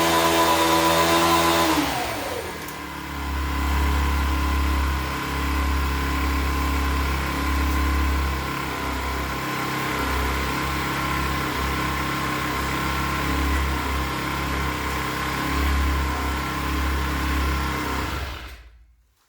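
Engine sound of an RC model Cat D11 bulldozer: high revs for about two seconds, then dropping to a low, steady idle that cuts off suddenly near the end.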